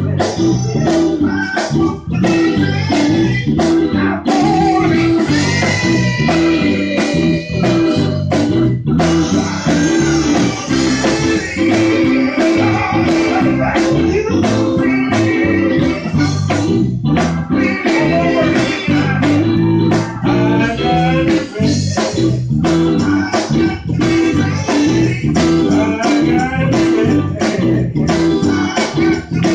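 Live gospel music: men's voices singing over a band with guitar, bass and a steady beat.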